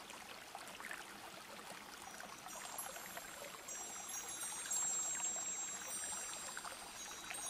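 Flowing stream water, with high, sustained chime tones ringing in from about two and a half seconds in.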